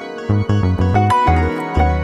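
Background music: a melody over a bass line, with a quick run of short bass notes in the first second, then a held bass note.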